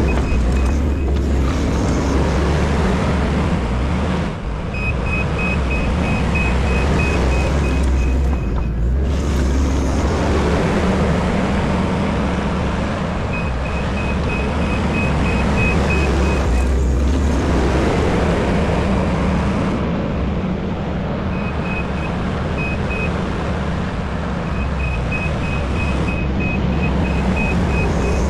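Diesel earthmoving machine running steadily under load, its backup alarm beeping in several runs of a few seconds each as it reverses back and forth.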